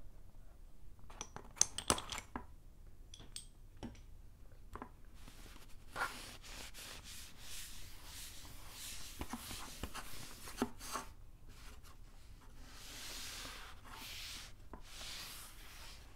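Chalk on a small wooden-framed chalkboard: sharp taps and clicks of chalk sticks for the first few seconds, then chalk rubbed across the board in quick scraping strokes with taps in between. Near the end come a few long, soft swishes as the board is wiped with a tissue.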